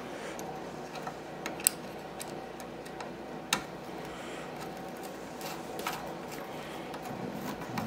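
Screwdriver and screw working on a metal bracket plate screwed to the underside of a wooden pinball playfield: scattered small metal clicks and taps, two sharper ones about a second and a half and three and a half seconds in, over a steady background hum.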